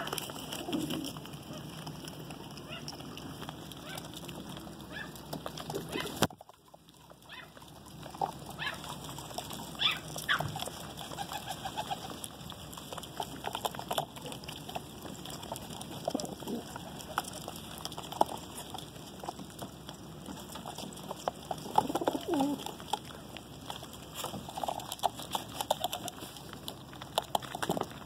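Domestic pigeons cooing low while feeding, with many quick sharp clicks of beaks pecking at grain.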